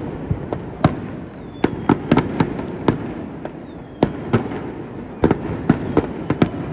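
Fireworks display: aerial shells bursting in about a dozen sharp bangs at uneven intervals, several in quick clusters, over a steady background rumble.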